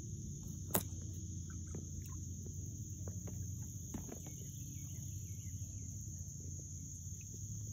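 Steady high-pitched drone of an insect chorus, with a few faint bird chirps over a low rumble. A single sharp knock comes about a second in.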